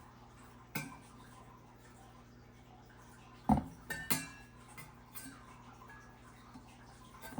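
Several separate metallic clinks and knocks as a small vintage Corando desk fan's metal blades are handled and bent by hand to cure the fan's wobble. The loudest knock comes about halfway through.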